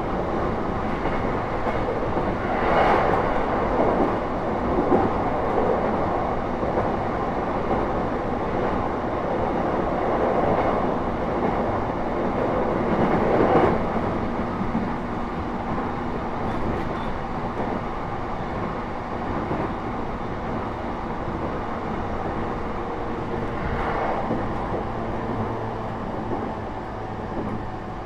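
Interior running noise of an E233-3000 series electric multiple unit travelling between stations: steady wheel-on-rail rumble with a few louder surges. A weak air-conditioning unit runs underneath.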